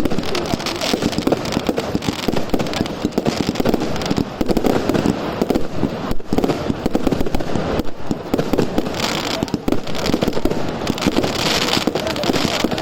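Fireworks going off in a dense, continuous crackle of many rapid overlapping pops and bangs.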